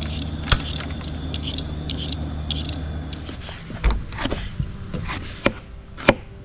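Hand peeler scraping small potatoes over a low steady engine hum, which stops about three seconds in. Then a kitchen knife slices through a green capsicum and an onion, knocking on the cutting board about five times.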